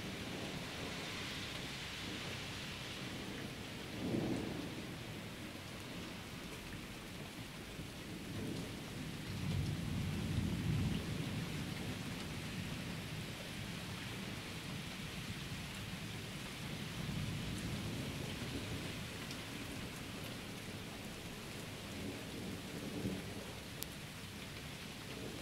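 Steady rain falling through a thunderstorm, with low rumbles of thunder rolling in several times: a short one about four seconds in, a longer, stronger one in the middle, and softer ones later.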